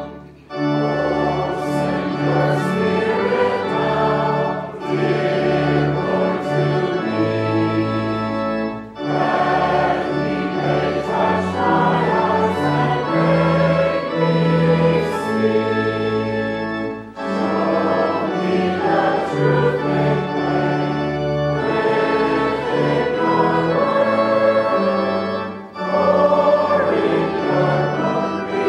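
Congregation singing a hymn verse with organ accompaniment, in long phrases with brief breaks between the lines.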